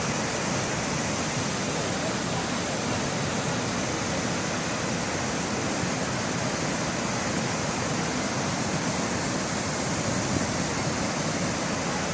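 Chitrakot Falls on the Indravati River: a large waterfall's steady, unbroken rush of falling water.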